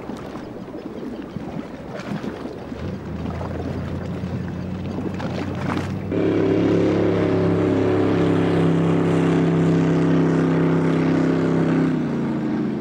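Motorboat engines running on the water. At first a faint low drone sits under wind and water noise. About six seconds in a much louder, steady engine drone takes over close by, and it drops in pitch near the end.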